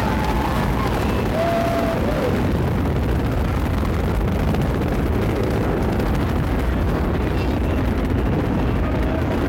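Space Shuttle Columbia's solid rocket boosters and main engines during ascent: a loud, steady, dense rocket rumble.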